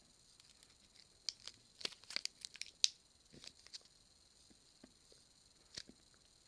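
Plastic sweet wrapper being torn and crinkled: a quick run of sharp crackles in the middle, then one more near the end.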